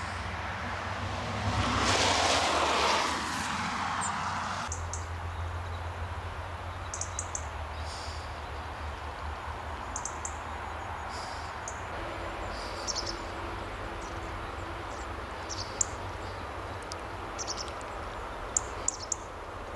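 A passing vehicle swells to the loudest point about two seconds in, then breaks off abruptly. After it, a steady low rumble carries on, with small birds giving short, high chirps every second or two.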